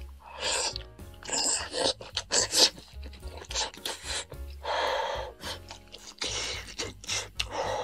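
Green-bean braised wheat noodles being slurped into the mouth over and over, a run of short sucking slurps about every second with chewing between, over soft background music.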